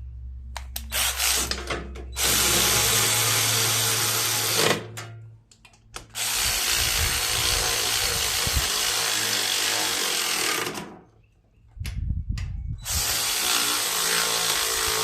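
Cordless power drill/driver running in three long runs of several seconds each, with short pauses between them, driving in the valve cover bolts on a Briggs & Stratton mower engine.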